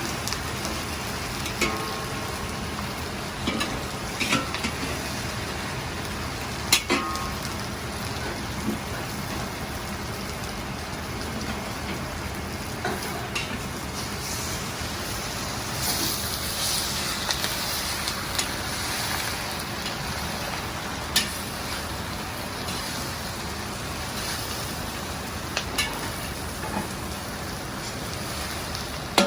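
Chicken cooking in a wok: steady sizzling, with a few sharp metal clanks of the ladle against the wok. About halfway through, the sizzle flares brighter and hissier for several seconds.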